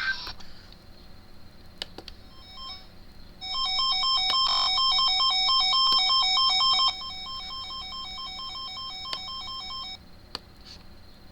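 Electronic beeping: a rapid run of pulsed beeps, about three to four a second. It starts about three and a half seconds in, drops in level about seven seconds in and stops near the end.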